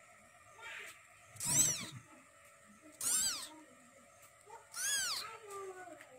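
Newborn Persian-Siberian kitten mewing: three short, high cries, each rising then falling in pitch, about a second and a half apart, with a fainter one before them.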